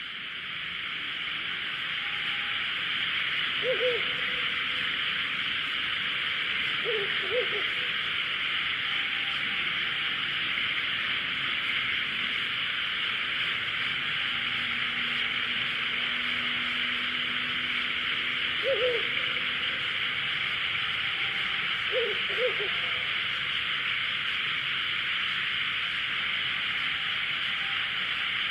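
Ural owls hooting: short low hoots coming singly or in pairs, a few times, with long gaps between them. A steady high hiss runs throughout underneath.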